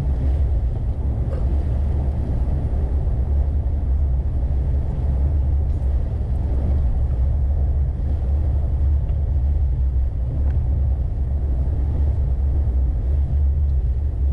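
Steady low rumble of a vehicle driving on a paved road, heard from inside the cabin: engine and tyre noise with no change in pace.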